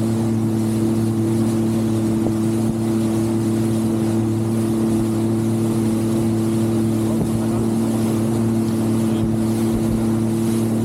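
Jet ski engine running at a steady speed, its pitch holding flat, over a rushing haze of wind and water.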